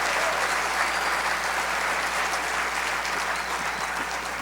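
Audience applauding, gradually dying down toward the end.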